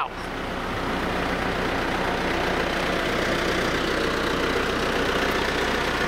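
Heavy construction machinery's diesel engine running steadily with a low drone, growing a little louder over the first second and then holding even.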